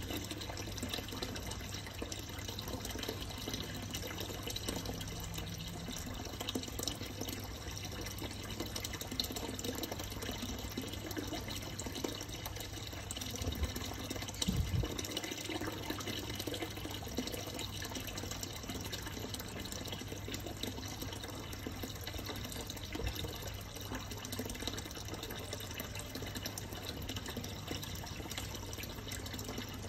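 Steady running, trickling water from a fish tank's water circulation, over a low steady hum, with a brief low bump about halfway through.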